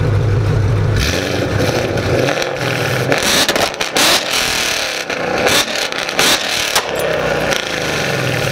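Ford Mustang GT's V8 idling, then revved hard about a second in, followed by a rapid run of loud exhaust pops and bangs, and settling back to idle near the end.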